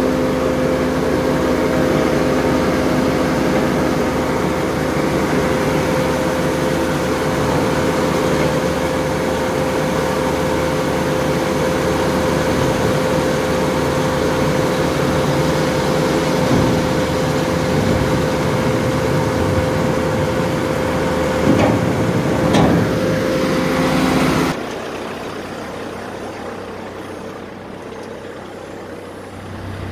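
Grain auger running while wheat pours out of a hopper-bottom trailer's bottom gate: a steady mechanical hum over an even rushing noise. It cuts off suddenly about 25 seconds in, leaving quieter, lower machine noise.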